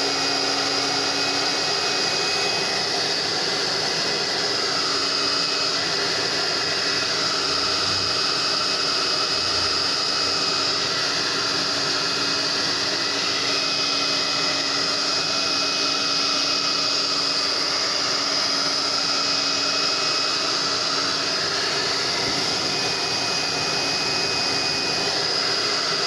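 Tecnoelétrica Fórmula 6000 Turbo hair dryer running steadily, a high motor whine over the rush of air, with its fan no longer rubbing on the housing.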